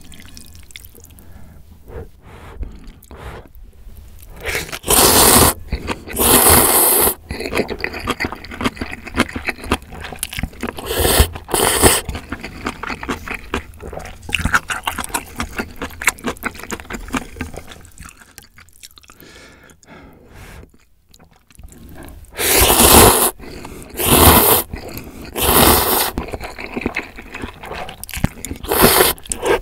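Close-miked eating of instant ramyeon noodles in broth: about eight loud slurps of noodles, each lasting about a second, with wet chewing between them.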